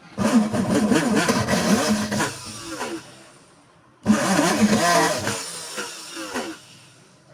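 775 DC motor of a homemade PVC-bodied hand drill switched on twice. Each time it runs at speed for about two seconds, then winds down with a falling whine once it is switched off.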